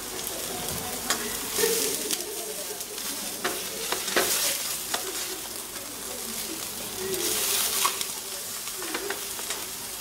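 Meat sizzling as it sears in a hot stainless steel frying pan. The sizzle swells a few times, and metal tongs clatter against the pan as the meat is moved.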